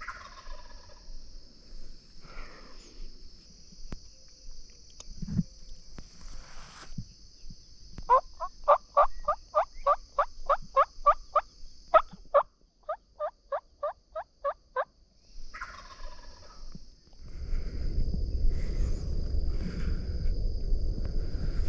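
Wild turkey hen yelping in the woods: a long series of sharp, evenly spaced yelps, about four a second for some four seconds, then a shorter series after a brief pause. In the last few seconds, loud rustling of movement through dry brush begins.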